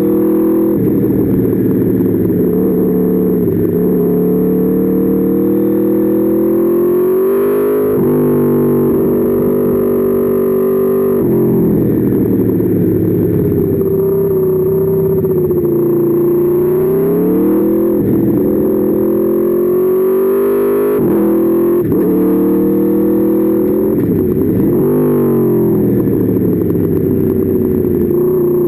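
Aprilia Tuono V4's V4 engine heard onboard, accelerating and decelerating through the gears. Its pitch climbs for a few seconds, then drops sharply at each shift or braking point, about every three to four seconds.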